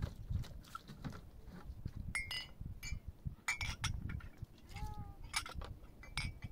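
Small glass tea glasses clinking against each other and a metal tray as they are rinsed and handled, with several sharp ringing clinks spread through.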